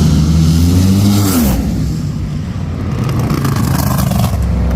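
Drag race car engine running loudly at a steady pitch. It rises briefly, then drops away sharply about a second and a half in, leaving a rougher, fainter engine sound.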